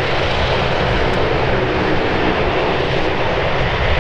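Twin turboprop engines of a Bombardier Dash 8 Q400 running as it taxis, a loud steady drone.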